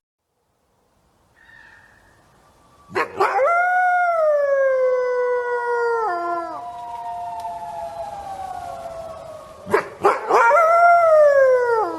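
Two long wolf-like howls. The first starts about three seconds in and glides slowly down in pitch, with a sudden step down partway, then trails off. The second, shorter howl rises and then falls near the end.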